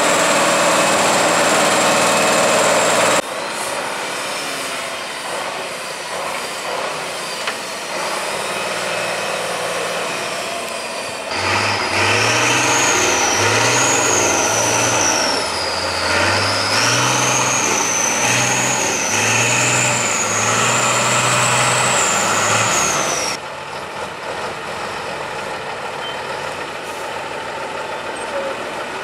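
Heavy trial trucks' engines labouring and revving as the trucks crawl up steep dirt slopes. The engine speed rises and falls in steps, and in the middle stretch a high wavering whistle sounds above it. The sound changes abruptly three times.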